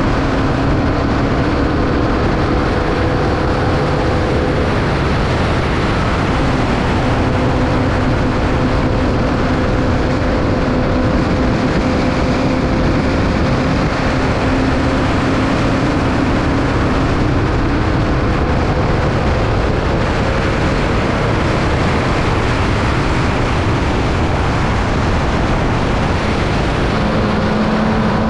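Onboard sound of a Formula Vee's 1200cc air-cooled Volkswagen flat-four running hard at sustained high revs, under heavy wind and road noise. The engine pitch holds fairly steady and shifts slightly near the end.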